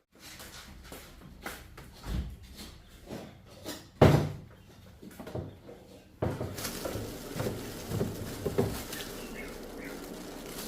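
Scattered knocks and clatter, the loudest about four seconds in; about six seconds in a steady background noise starts suddenly, with more knocks over it.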